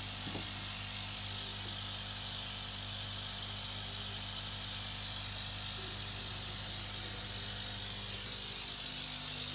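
Steady hum of an electric aeration blower with an even hiss of air bubbling into the water of a biofloc fish tank.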